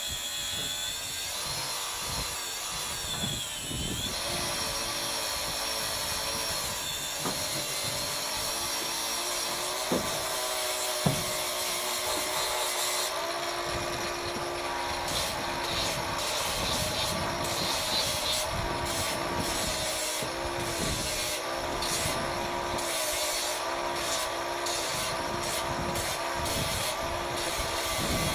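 A power tool running and working into material, its motor whine dipping and recovering in pitch. From about halfway it is worked in repeated strokes, each one pulling the pitch down.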